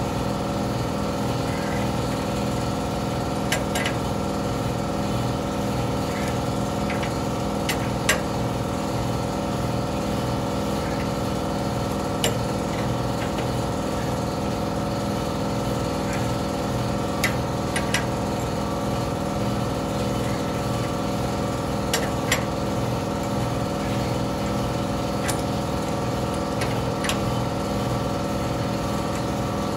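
A steady motor hum with several tones runs throughout, the loudest sound. Scattered sharp metallic clicks and ticks, about a dozen in all, come from the breaker bar and socket as they turn the 3/4-inch grade 8 bolt of a home-made bushing press tool, slowly pushing a stubborn lower control arm bushing out of the frame.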